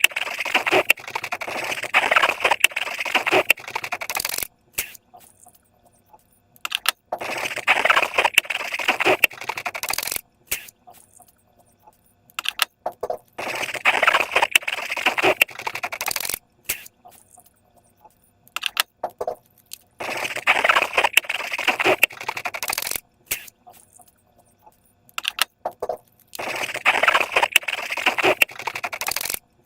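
Slime being worked by hand, with dense crackling and clicking. It comes in five spells of about three seconds each, with short quiet pauses between them.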